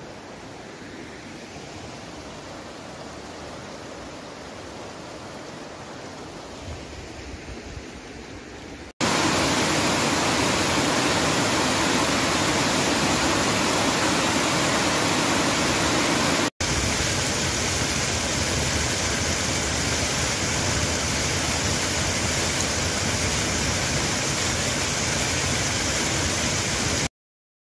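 Rushing water throughout. For the first nine seconds a shallow woodland stream flows fast over stones. Then the sound jumps to a much louder, steady rush of water pouring over a stone weir, and after a brief break a small waterfall splashes down from a stone wall, before the sound cuts off abruptly near the end.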